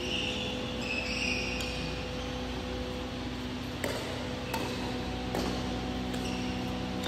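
Badminton rackets striking a shuttlecock in a fast rally: several sharp hits, less than a second apart, in the second half. Court shoes squeak on the floor in the first second and a half, over a steady low hum.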